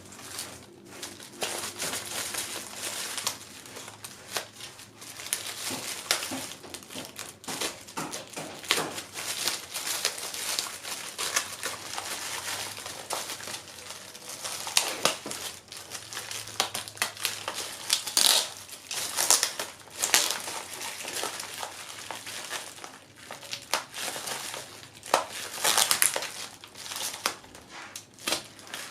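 Plastic packaging crinkling and rustling as a parcel is unwrapped by hand, a continuous run of crackles with louder ones now and then.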